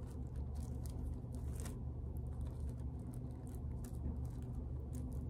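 Steady low hum under faint, scattered clicks and light rustling from small objects being handled close to the microphone.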